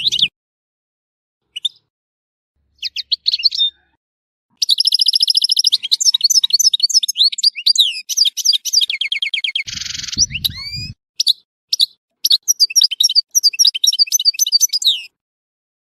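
European goldfinch singing: a few short calls at first, then from about five seconds a long run of fast, high twitters and trills that stops shortly before the end. About ten seconds in comes a short harsh buzz with a low rumble under it.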